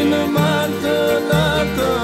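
Albanian folk music: a wavering, ornamented melody over a low bass that changes note about once a second.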